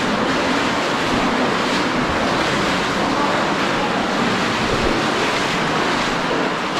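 Steady rushing of an underground river flowing through a cave.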